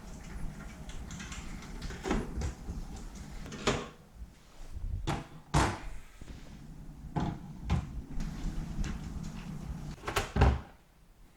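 A small PC case being unboxed from its cardboard box and packaging: a series of knocks and thuds with rustling between them, the loudest thud near the end.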